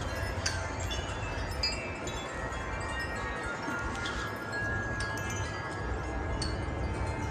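Several hanging wind chimes ringing in gusty wind, their tubes struck irregularly so that many tones of different pitches overlap and ring on. Wind rumbles low on the microphone underneath.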